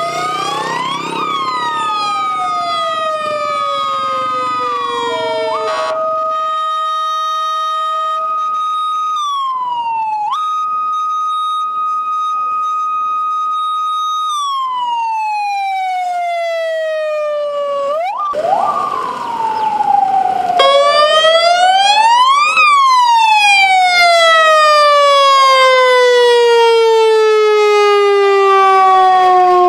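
Sirens of police vehicles and an ambulance in a convoy: a held tone broken by falling and rising sweeps. About two-thirds of the way through, a louder siren rises to a peak and then falls away slowly.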